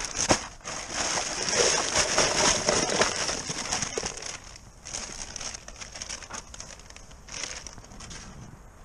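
Thin plastic bag crinkling as it is shaken out, with a bagful of small plastic litter (bottle caps, wrappers, toys) tumbling and rattling into a fabric bin. It is loudest for the first three seconds or so, then drops to occasional rustles.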